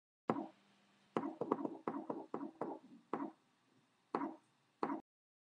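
Sharp percussive hits from an intro sting. There is one hit, then a quick cluster of about eight more, then three spaced hits; each dies away fast.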